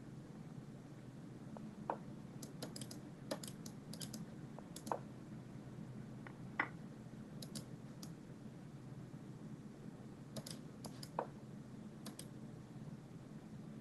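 Clicking at a computer: sharp clicks, some single and some in quick runs of two to four, over a steady low hum.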